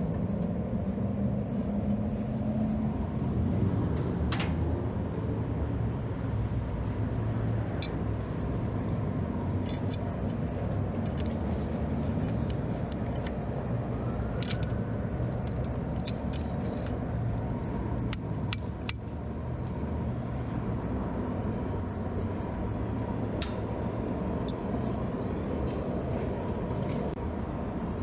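A forge running with a steady roar, with a few light metallic clicks scattered through it.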